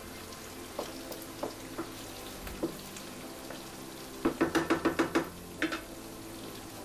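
Wooden spatula stirring onions, garlic and chillies sweating in olive oil in a frying pan, knocking against the pan now and then over a faint, steady sizzle. A little past the middle comes a quick run of about seven knocks, then two more.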